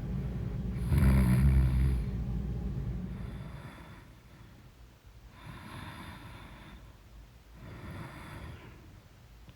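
A woman snoring in her sleep: a loud, low snore peaks about a second in and fades away by about four seconds in, then three quieter breaths follow.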